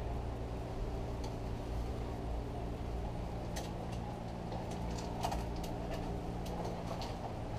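A steady low hum with several steady tones, joined about halfway through by light clicks and knocks as the bicycle carrying the camera is moved and turned.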